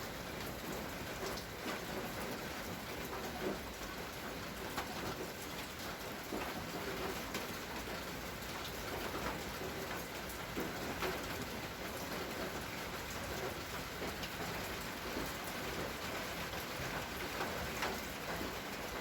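Steady rain falling, with many separate drops striking close by over an even hiss.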